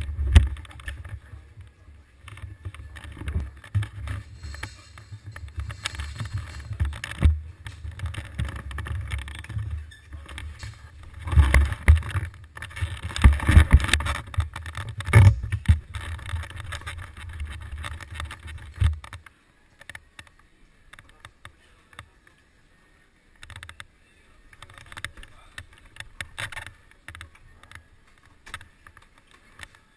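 Muffled rumbling and knocks of an action camera being jostled and handled. About two-thirds of the way through this gives way to faint, scattered noises.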